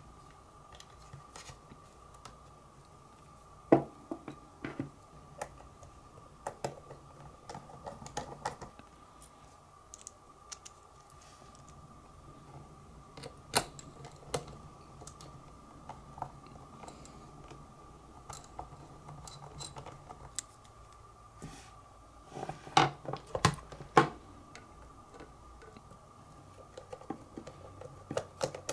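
Hands and a small screwdriver reassembling an opened Logitech Squeezebox Boom internet radio: scattered clicks and taps of screws and plastic and metal parts. A cluster of louder knocks comes a little over twenty seconds in.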